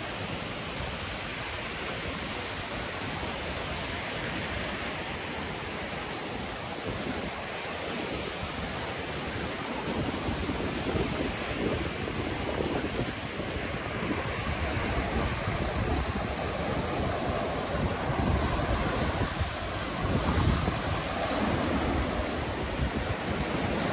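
Sea surf washing in with wind buffeting the microphone, the gusts growing heavier about ten seconds in.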